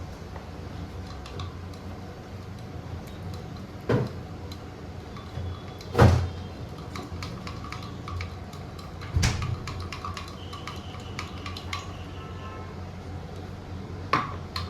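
Kitchen clatter: a few separate knocks and clinks of dishes or utensils, the loudest about six seconds in, over a steady low hum.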